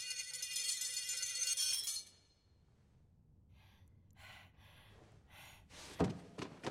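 Film sound effect for a magic golden ring: a shimmering metallic ringing of many high chiming tones that cuts off about two seconds in. It is followed by a few soft whooshes and a thud near the end.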